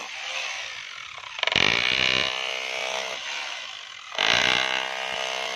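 DeWalt rotary hammer drill boring into a concrete roof slab, in two long loud bursts: one starting about a second and a half in, the other about four seconds in, with quieter running between.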